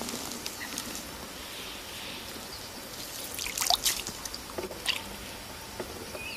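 Pike splashing in the shallows at the water's edge as it is landed by hand, with light dripping and trickling water. The loudest splashes come in a quick cluster about three and a half seconds in, with another a second later.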